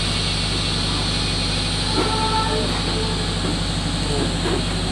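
Cruise boat's engine running steadily under way, a low drone with a steady hiss above it.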